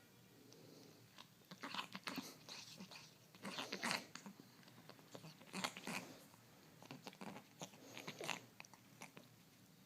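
A cat licking itself in short spells of rapid, rough, wet strokes, four or five spells a second or two apart, mixed with the strained, wheezy noises of its respiratory disease.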